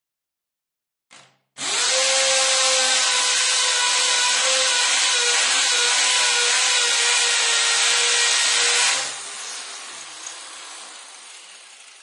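Power drill: a brief blip about a second in, then the motor spins up and runs at a steady speed with an even whine for about seven seconds. After that the sound drops sharply and fades away over the last three seconds.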